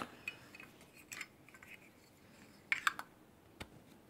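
A few light metallic clicks and taps from a Zippo lighter being handled, with a small cluster of them near the end.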